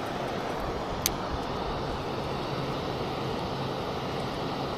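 Steady rushing roar of water pouring over a dam spillway, with a single sharp click about a second in.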